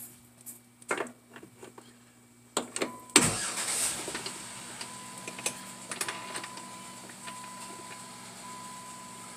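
Threading tool holder being fitted to the lathe's quick-change tool post: a few light metal clicks, then a run of clunks ending in one loud clank about three seconds in. A steady machine hum follows.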